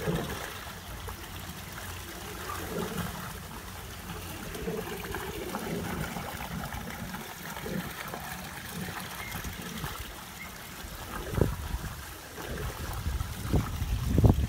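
Water trickling and gurgling steadily in a swimming pool churned by moving water, with a few louder low thumps near the end.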